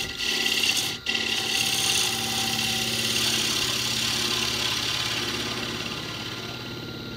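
Wood lathe motor humming while a bowl gouge hollows a spinning half-green cherry plate blank, a steady hiss of wood being cut. The cut breaks off briefly about a second in, and the cutting grows fainter toward the end.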